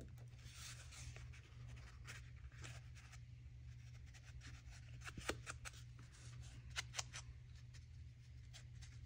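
Faint rustling and light clicks of paper card tags being handled and shifted between fingers, over a low steady hum.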